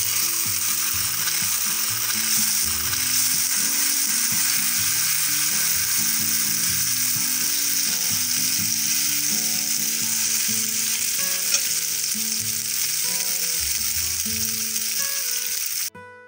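Grated potato and egg batter frying in hot oil in a cast-iron skillet: a steady sizzle that cuts off suddenly near the end.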